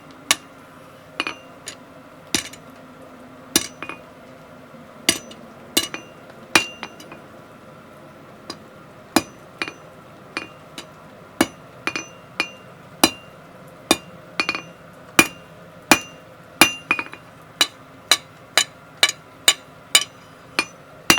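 Blacksmith's hammer striking hot steel on an anvil in irregular single ringing blows, shaping the end of a round bar into a hexagon. The blows pause briefly partway through, then come quicker.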